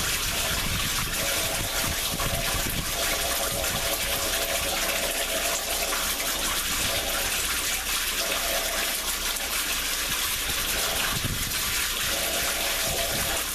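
Shower spray running steadily onto a shower pan, with a faint hum from a small electric drain pump underneath priming to suck away the pooled water.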